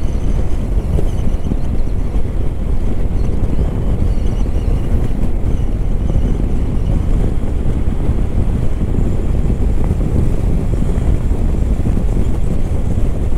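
Steady wind rush on the microphone at highway speed, over a Hero Xpulse 200 4V's single-cylinder engine cruising in fifth gear at about 6000 rpm.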